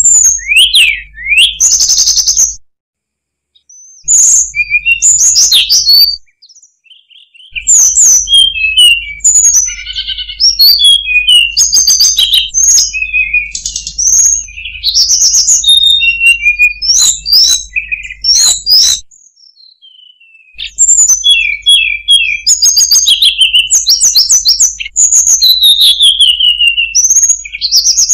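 Hill blue flycatcher song: quick, varied high whistled phrases, some gliding and some trilled, sung in runs that are broken by a few short pauses.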